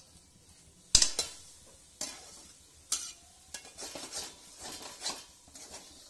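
Steel spatula stirring and scraping a thick spice paste as it roasts in oil in a steel kadhai: a few sharp knocks of metal on the pan, the loudest about a second in, then a run of quick scraping strokes.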